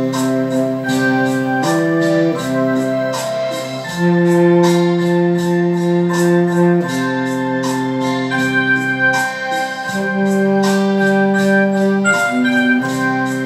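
Roland BK-3 arranger keyboard playing a slow hymn in held, organ-like chords that change every one to three seconds, over a steady light percussion beat.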